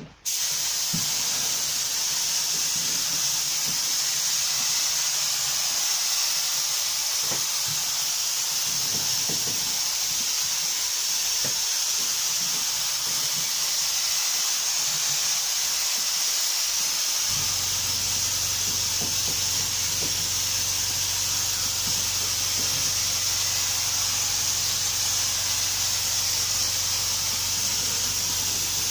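Compressed-air gravity-feed spray gun spraying paint: a steady, loud hiss of air and atomised paint. A low steady hum joins about halfway through.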